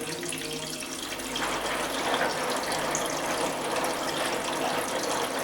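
Water running into a Valberg washing machine's detergent drawer as the machine fills, getting louder about a second in and then flowing steadily: the drawer being flushed to check that detergent and softener are drawn in.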